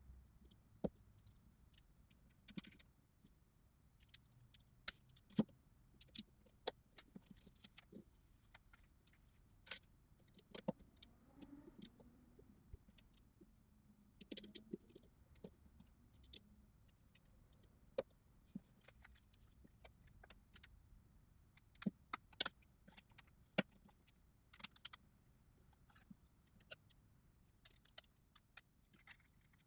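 Plastic LEGO pieces clicking and clattering as they are handled and pressed together: faint, sharp, irregular clicks, at times several in quick succession.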